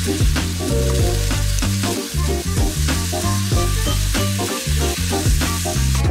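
Ground beef sizzling in a hot frying pan as it is seasoned and broken up with a spatula, a dense hiss that stops abruptly near the end. Background music with a deep, stepping bass line and a steady beat plays throughout.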